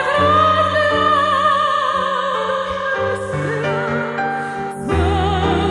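Female voice singing an old Russian romance in a classical, operatic style with wide vibrato, accompanied by piano chords. She sustains a long phrase, breaks briefly about five seconds in, and starts a new phrase with an upward slide.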